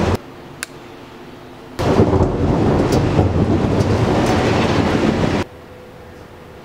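Thunder rumbling over heavy rain, switched in and out abruptly: it drops away just after the start, comes back loud about two seconds in, and cuts off sharply about a second before the end, leaving a faint hiss with a thin steady tone.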